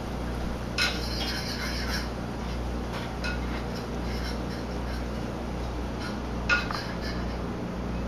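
A cat pawing and chewing at a bouquet in a glass vase: brief rustles and clinks of stems and glass, about a second in and again about six and a half seconds in, over a steady low hum.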